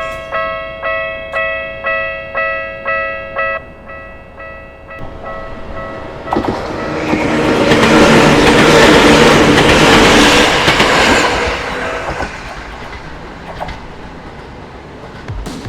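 Japanese level-crossing warning bell ringing about twice a second, stopping a few seconds in. A train then passes over the crossing, its noise building to a loud peak about halfway through and fading away.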